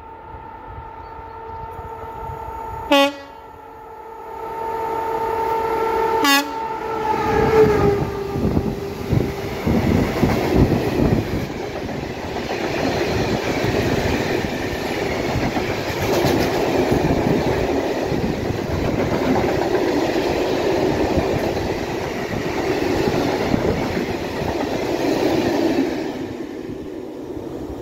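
A locomotive hauling a freight train of hopper wagons passes. A steady humming tone grows louder and drops in pitch as the locomotive goes by about eight seconds in, with two short sharp sounds before that. Then comes a long rumble and clatter of wagon wheels on the rails, which fades near the end.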